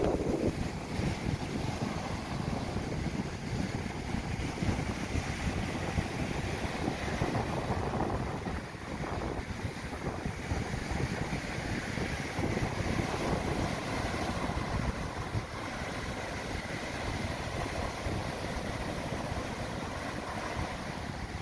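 Sea waves breaking and washing up a sandy beach, with wind buffeting the microphone as a steady low rumble.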